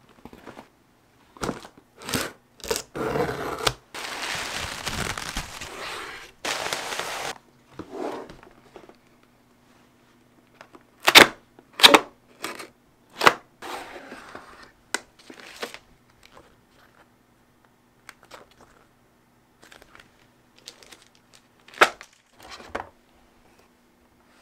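Cardboard keyboard box being handled and opened: a few taps, then about three seconds of continuous tearing and scraping of cardboard, followed by scattered sharp cardboard snaps as the inner box's flaps and tuck tab are pulled open, with light rustling between.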